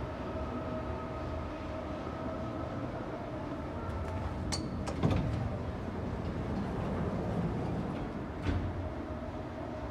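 Landing doors of a 1992 Stricker hydraulic elevator opening as the car arrives, over a steady hum. There are a few sharp clicks with a brief high tone about halfway through, then a thump that is the loudest sound, and another knock near the end.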